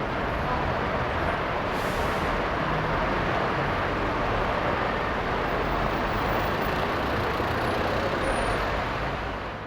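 Busy bus station ambience: a dense, steady wash of bus engines and traffic, with a short hiss about two seconds in, fading out at the very end.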